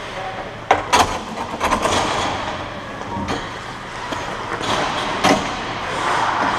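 Ice hockey game heard from the players' bench of an indoor rink: steady rink noise with a few sharp knocks, the loudest about a second in and another past five seconds.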